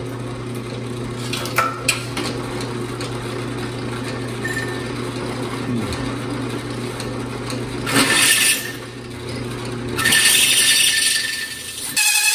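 Drill press motor running with a steady hum, turning a 2-inch hole saw against 4-inch square steel tube. The saw's teeth cut the steel with a harsh grinding noise briefly about eight seconds in and again for about two seconds near the end.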